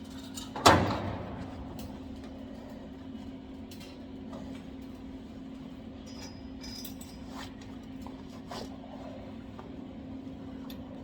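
A single sharp metallic clank about a second in that rings briefly, over a steady electrical hum and a few faint clicks, typical of a welding workspace with the machine idling.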